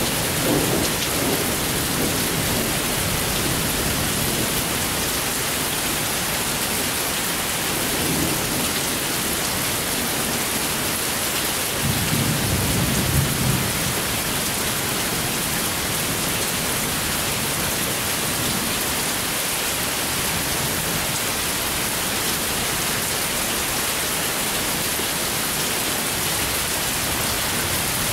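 Steady rain hissing through a thunderstorm, with low thunder rumbling. There is a rumble at the start, a weaker one about eight seconds in, and the loudest, about two seconds long, around twelve seconds in.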